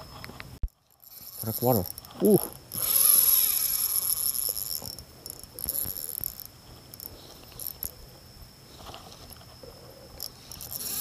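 Spinning reel, a DMK Bluemoon 1500 on an ultralight rod, being worked by hand with a mechanical whirring and clicking. The whir is loudest for about two seconds, starting about three seconds in, then comes and goes more quietly.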